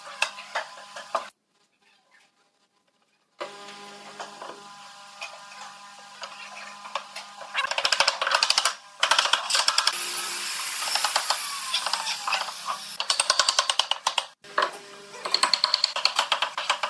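Wooden mallet striking a pine frame in several quick runs of knocks.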